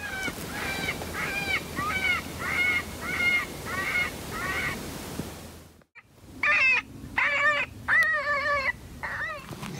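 A coyote predator call sounding a series of wailing, arching cries, about two a second, to lure coyotes in. About six seconds in the sound cuts out briefly, and the cries come back louder, longer and lower.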